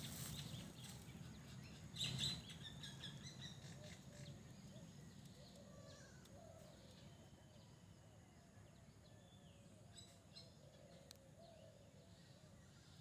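Faint outdoor birds chirping, with a brief louder cluster of chirps about two seconds in and a run of soft, low, repeated calls underneath that fades toward near silence.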